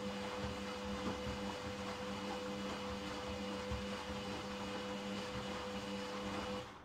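Candy 7 kg front-loading washing machine's motor turning the drum during the wash phase of a 30 °C delicates cycle: a steady motor whine over the tumbling of the wet laundry, which stops near the end as the drum pauses between turns.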